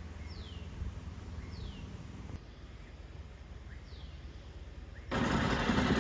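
A bird calling outdoors: three short whistles, each falling in pitch, over a low steady hum. About five seconds in, a louder steady rushing noise cuts in abruptly.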